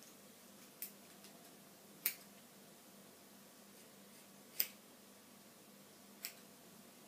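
Hair-cutting shears snipping through hair: four sharp, short snips at irregular intervals, the second and third the loudest, with a few fainter ticks between them.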